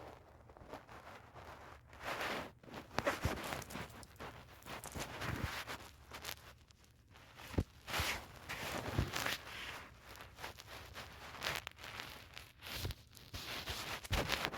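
Irregular rustling and shuffling noises with a few sharp knocks, in uneven bursts.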